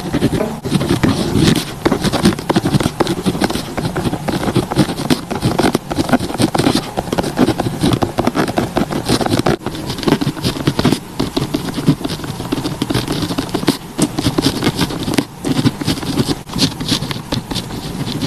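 Pen scratching on paper in continuous, irregular strokes with small taps, the sound of someone writing steadily at a desk.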